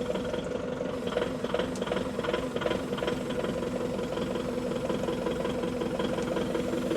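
Engine of a forklift idling steadily while it lifts a load, with scattered light rattles and clicks.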